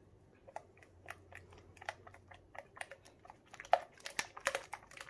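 Spatula stirring thickening slime in a glass bowl: irregular wet, sticky clicks, busier and louder about four seconds in. The slime is just beginning to thicken as activator is worked in.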